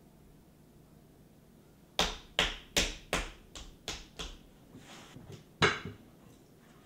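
Hands slapping and patting a ball of clay down onto a pottery wheel head: a quick run of about seven slaps, roughly three a second, then one louder smack about a second and a half later.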